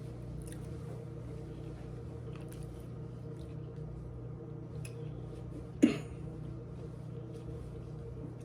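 Faint chewing and mouth sounds of someone eating a sandwich over a steady low hum, with one sharp knock about six seconds in that rings briefly.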